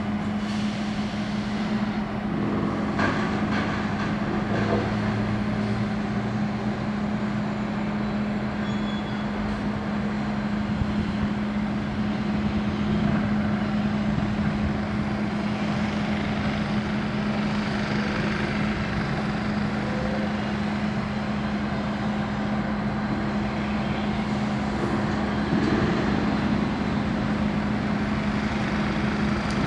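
Pacific National 83 class diesel locomotives working under power at a distance: a steady engine drone with a constant low hum, growing slightly louder near the end as the lead locomotive approaches.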